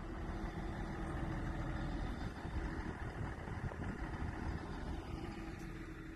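A vehicle engine idling steadily, a low rumble with a constant hum.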